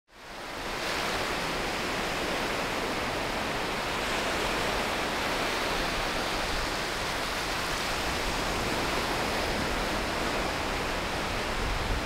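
Sea surf washing onto a beach: a steady rushing hiss that fades in over the first second.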